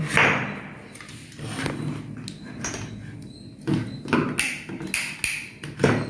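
Handling noise from a plastic modular switch plate and a lamp holder being picked up and set down on a wooden table: a scattered series of knocks and taps, with the strongest at the start and just before the end.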